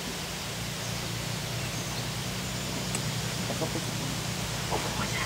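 Steady hiss and low hum of a small tour boat moving along a marsh canal, with a few short bird calls in the second half.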